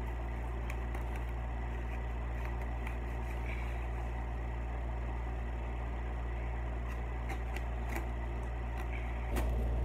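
Steady low hum with scattered faint clicks and rustles of a cardboard package being cut open and handled. The hum gets louder near the end.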